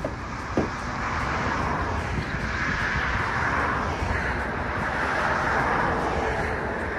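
A car driving: steady road and wind noise.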